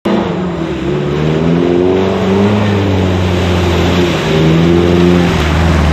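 Daihatsu Feroza's engine revving, its note rising and falling, as it drives through a muddy puddle with water splashing.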